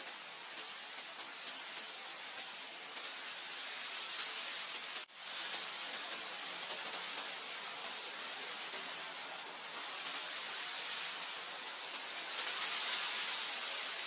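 Wind blowing through grassland, a steady hiss that swells and eases in gusts, strongest near the end. It drops out for an instant about five seconds in.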